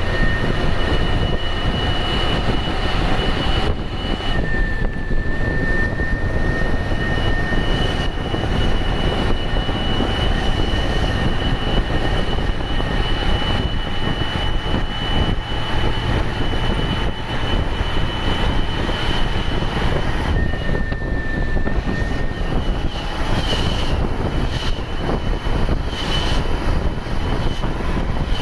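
Turbocharged, intercooled diesel engine of an Ashok Leyland BS-3 bus running steadily, with a high turbocharger whistle over it. The whistle switches between a lower and a higher note a few times: the higher note drops out about four seconds in and comes back around six seconds, and it drops out again around twenty seconds before returning.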